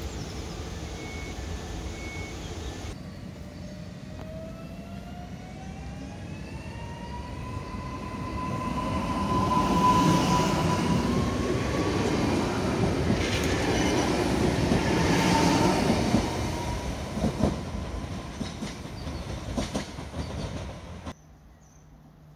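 Newag Impuls 36WEa electric multiple unit running along the platform. Its electric traction whine rises in pitch and then holds steady, over the rumble and clatter of its wheels, which grows loud midway and then fades. A moment earlier another electric unit's rumble fades out, and the sound cuts off abruptly near the end.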